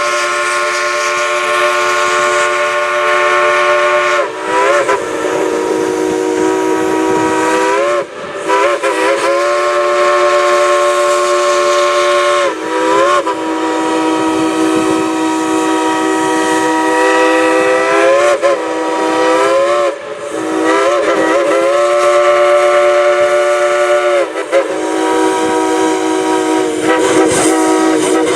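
Crosby three-chime steam whistle on a coal-fired steam locomotive, blown in a run of about seven long chords, each sliding up into pitch at the start and down at the end as the engineer works the valve to play a tune.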